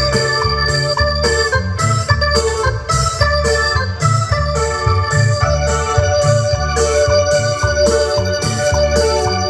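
Dance music with an electronic keyboard playing an organ-like melody over a strong bass line and a steady, quick drum beat.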